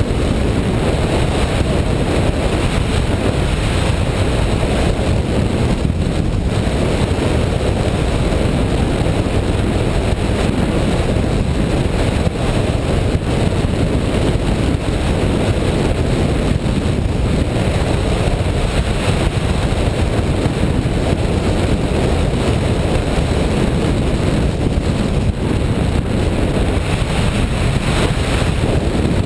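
Steady rush of airflow over a hang glider in flight, heard as loud, low wind buffeting on the microphone.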